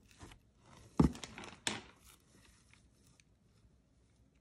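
Wooden colored pencils clicking against each other as they are handled. Two sharp clicks come about a second in and shortly after, with light rustling around them.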